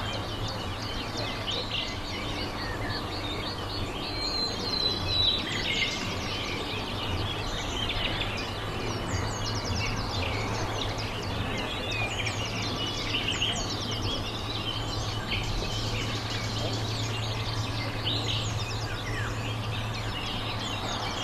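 Small birds chirping and twittering in many short, quick calls throughout, over a steady low hum.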